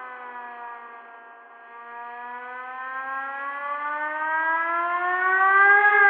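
Air-raid siren wailing. Its pitch sinks and it fades a little over the first second or two, then it climbs steadily in pitch and loudness, peaking near the end.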